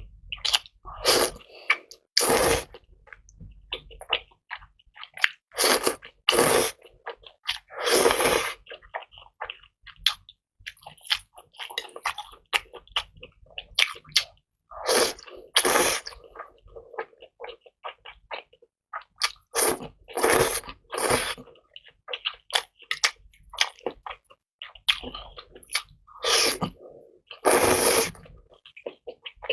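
Close-miked eating: loud noodle slurps every few seconds, with wet chewing and smacking between them.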